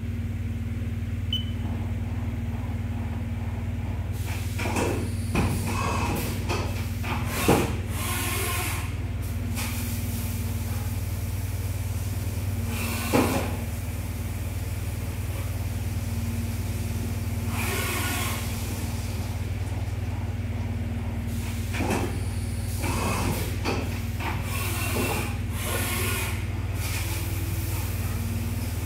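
Haas VF-3SS CNC vertical machining centre running a drilling and tapping cycle for M6x1.0 threads, with flood coolant spraying onto the work and splashing against the enclosure. A steady low hum runs underneath, and a string of short, louder hissing bursts comes and goes.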